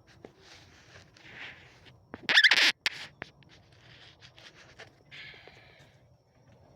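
Scratching and rustling handling noise with faint scattered clicks, and one loud, harsh rasp about two seconds in that cuts off abruptly.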